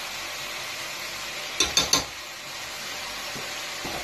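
Chicken and spice masala sizzling steadily in oil in a pot, with three quick sharp knocks about a second and a half in.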